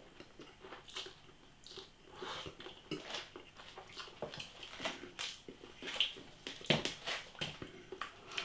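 A person slurping and chewing instant ramen noodles from a pot with a fork: a string of short, irregular mouth sounds.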